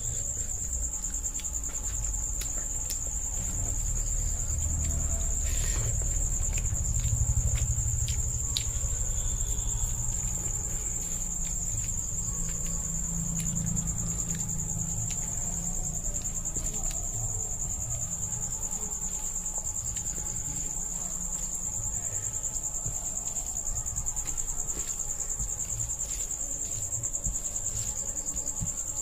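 Eating by hand: rice and chicken curry squished and mixed on a plate, with chewing and wet mouth clicks scattered through. Under it runs a steady high-pitched trill that never changes.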